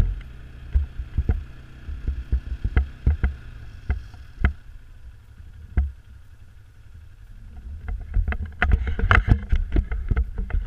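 Wind rumbling on the camera's microphone during travel across bare lake ice, with irregular knocks and clicks from the gear. The knocks come thick and fast in the last few seconds.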